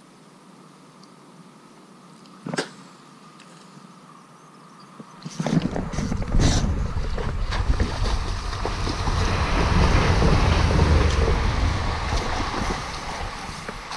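A hooked sea trout splashing and thrashing at the water's surface, starting suddenly about five seconds in and running on loudly, mixed with heavy low buffeting from the camera being jostled. A single sharp click comes earlier, about two and a half seconds in.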